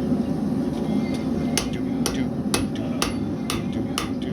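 Blacksmith's hammer striking hot iron on an anvil, starting about a second and a half in and going on in a steady rhythm of about two blows a second, over a steady low rumble.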